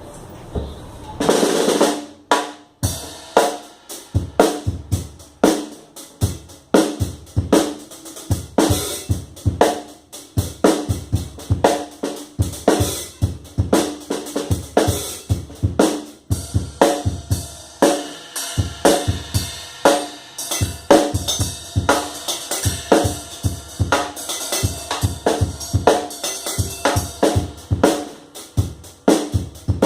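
A drum kit played loosely and fast, with bass drum and snare hits in an uneven pattern of many strikes a second. It opens with one long ringing hit about a second in.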